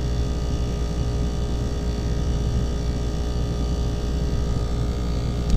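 ClimateMaster geothermal heat pump running, a steady low machine hum with fixed tones.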